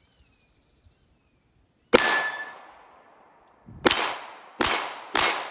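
Four pistol shots from a compensated STI 2011 Open gun firing hot 9mm major loads: one about two seconds in, then three in quick succession near the end. A steel target rings briefly after the first shot.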